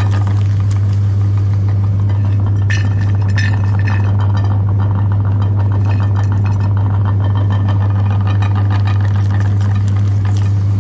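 Electric meat grinder running steadily with a strong, even low hum, grinding chocolate bar, with a few clinks and rattles about three seconds in.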